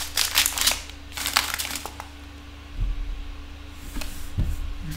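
Small clear plastic bags of diamond-painting resin drills crinkling as they are handled, in two bursts in the first two seconds, followed by a couple of soft low thumps as they are set down on a wooden table.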